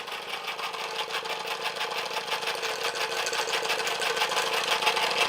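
Cyldon 13/5 model steam engine running flat out under steam, a fast, even mechanical clatter with a steady hum; its reduction gearing makes a bit of a racket.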